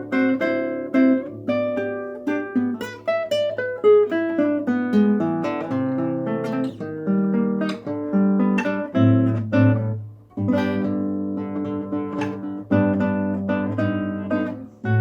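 Solo acoustic guitar playing a Brazilian choro: a quick plucked melody over a moving bass line, with a short break about ten seconds in.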